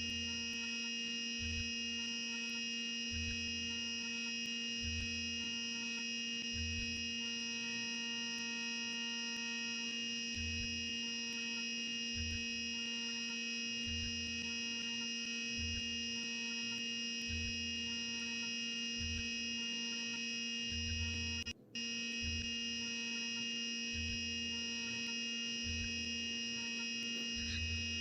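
CNC milling machine running a small 3/32 end mill at high spindle speed, cutting grooves in a brass part: a steady whine of several held tones, with a low throb that comes and goes every second or two as the cutter moves. The sound cuts out for a moment about three-quarters of the way through.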